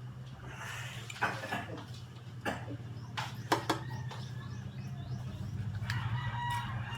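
A few sharp clicks and knocks over a steady low hum, with a brief high chirp near the end.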